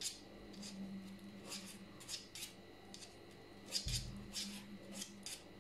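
Metal double-pointed knitting needles clicking lightly and irregularly, about twice a second, as a row is purled by hand. There is a soft low bump about four seconds in.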